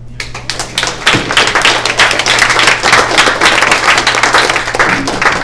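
Audience applauding: many people clapping at once, starting suddenly, swelling within the first second and thinning out near the end.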